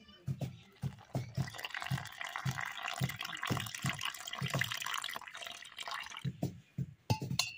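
Water poured in a thin stream from a steel pot into flour in a steel bowl, splashing and bubbling for about five seconds from about a second in. Under it runs a regular low thudding, about three a second.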